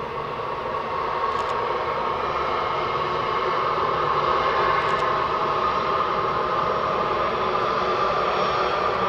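Airbus A320-214's CFM56 turbofan jet engines running steadily, growing a little louder over the first few seconds.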